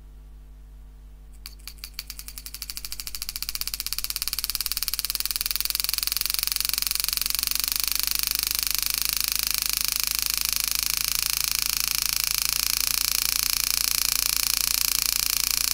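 Homemade motor-driven hand engraving machine hammering a 120° carbide graver into 304 stainless steel. About a second and a half in, the strikes start as separate taps, then quicken within a couple of seconds into a fast, steady buzzing rattle as the strike rate comes up.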